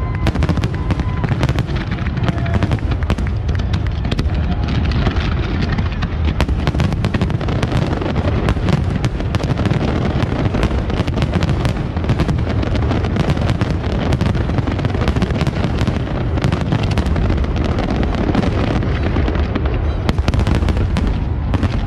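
Fireworks display in full barrage: many shell bursts overlapping into a continuous low rumble, with rapid crackling throughout.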